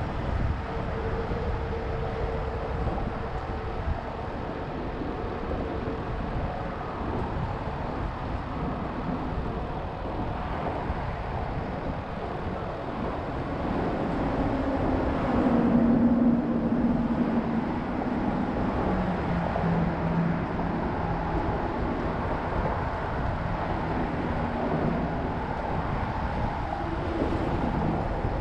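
Steady wind rumble on the microphone, with a faint hum from a distant engine partway through.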